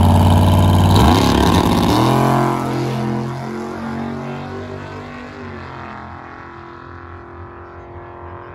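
Drag-race car launching from the start line. The engine holds a loud, high idle, then its revs climb sharply about a second in and climb again after a shift, and the sound fades away as the car runs down the strip.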